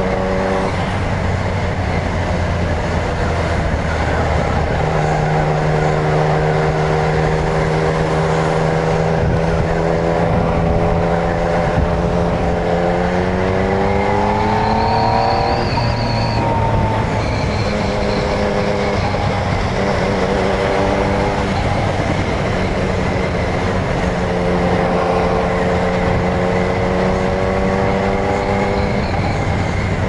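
Yamaha MT-09's inline three-cylinder engine running at a steady cruise, over a constant hiss of wind and wet-road tyre spray. The engine pitch climbs as it accelerates between about twelve and sixteen seconds in, then settles back to a steady note.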